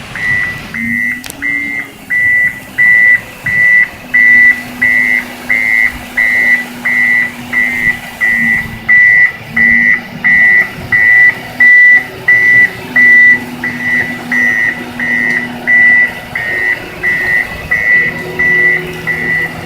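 Reversing alarm on a front-end loader, beeping steadily just under twice a second, with a low engine drone underneath.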